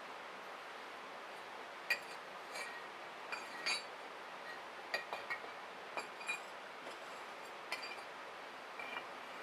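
About ten light clinks and taps of hard objects, irregularly spaced, each ringing briefly.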